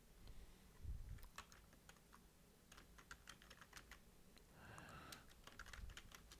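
Faint keystrokes on a computer keyboard as a command is typed: an irregular run of light key clicks, with a soft low thump about a second in.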